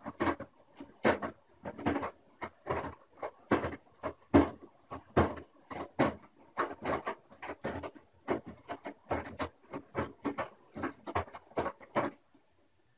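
Washing machine drum turning slowly, the wet laundry tumbling and sloshing in irregular bursts two or three times a second, then stopping abruptly near the end.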